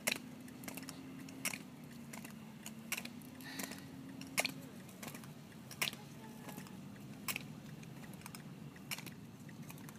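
Roller-ski pole tips clicking sharply on asphalt, roughly every one and a half seconds, with fainter clicks between, over a low steady hum.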